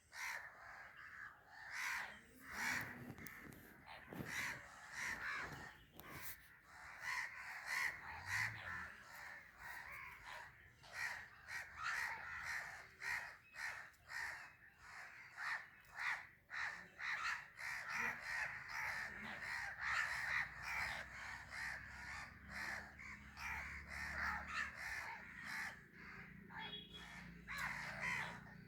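A flock of crows cawing continuously, many harsh calls overlapping.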